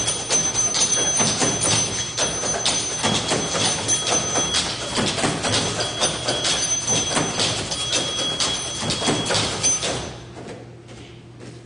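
Live table percussion: many hands tapping and knocking on a long tabletop in a dense, fast patter, with thin high steady tones held above it. The playing drops much quieter about ten seconds in.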